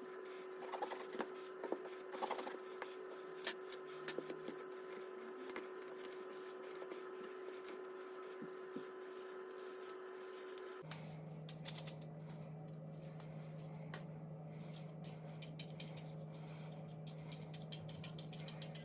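Scattered light clicks and taps over a steady hum. About eleven seconds in, the hum switches abruptly to a lower one.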